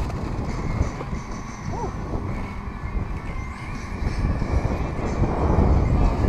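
Uneven low rumble of wind buffeting the microphone over open-air ambience, with a brief faint chirp-like glide about two seconds in.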